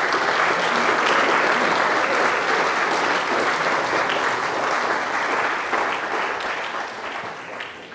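Audience applauding, a dense steady clapping that fades away over the last couple of seconds.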